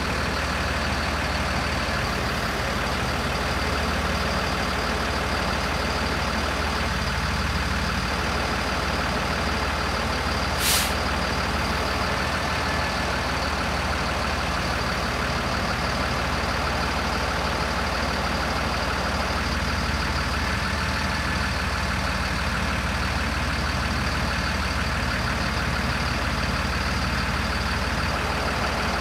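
The diesel engine of a 2007 Freightliner M2 bucket truck runs steadily while it powers the Lift-All hydraulic aerial boom. There is a brief hiss about ten seconds in.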